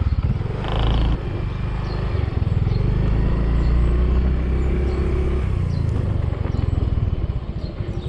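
Yamaha Mio scooter's small single-cylinder four-stroke engine running as the scooter pulls away and rides along the road.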